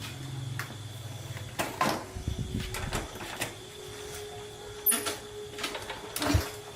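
A few sharp knocks and clicks of parts or tools being handled, the loudest about two seconds in and near the end, over a faint steady hum.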